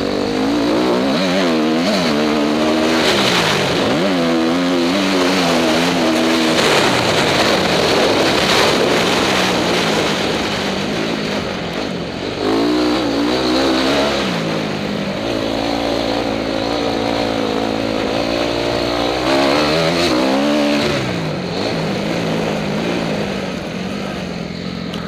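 2012 KTM motocross bike's engine revving, its pitch rising and dropping again and again as the rider works the throttle, heard from onboard with wind rushing over the microphone.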